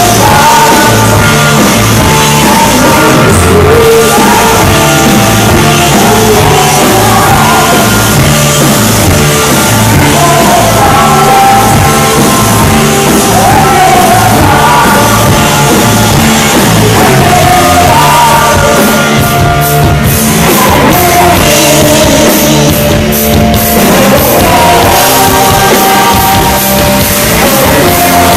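Live rock band playing loud, with a steady driving beat and a singer over it, heard from within the audience in a large hall.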